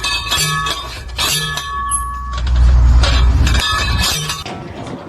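Repeated metallic clanging: about four hard strikes, each ringing on briefly, with a heavy low rumble a little past halfway.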